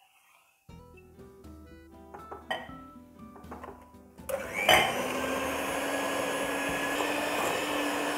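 Quiet background music, then about four seconds in an electric hand mixer switches on and runs steadily, its beaters whisking melted dark chocolate into a whipped egg-and-sugar-syrup mousse base, with a sharp knock just after it starts.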